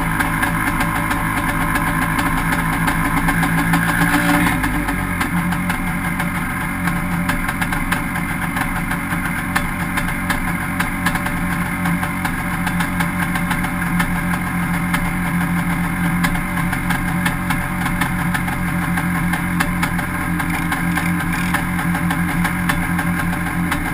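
A small dune buggy's engine (the FL400 Pilot buggy) running a little higher for the first four seconds or so, then settling to a steady idle.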